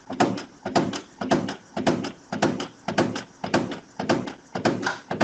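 Epson EcoTank inkjet printer printing, its print carriage shuttling back and forth with a clattering knock (a 'batucada') about twice a second. The knock comes from a worn, slack carriage timing belt slapping as the carriage reverses at the left end of its travel.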